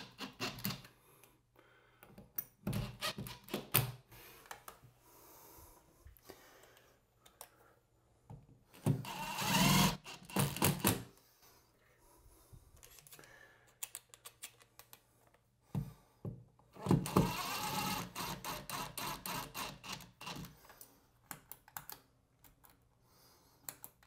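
Hilti cordless drill driving screws into a plastic shower valve trim, in short runs with clicks and knocks of handling between them; a loud run comes near the middle and a longer one of about four seconds later on.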